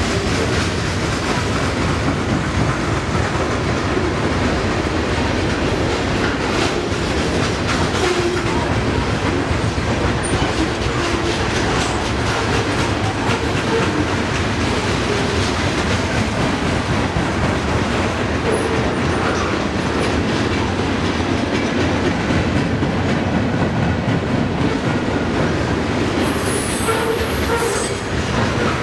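CSX freight train's cars rolling past: a steady rumble and clatter of steel wheels over the rails, with a few short wheel squeals, one high-pitched near the end.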